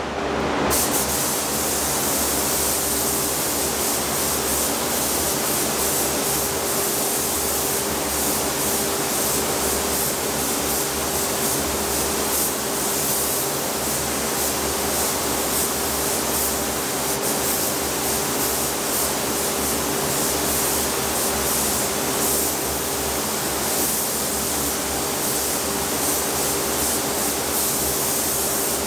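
Gravity-feed spray gun hissing steadily as compressed air atomises paint onto a plastic grille, starting about a second in. A steady low hum runs underneath.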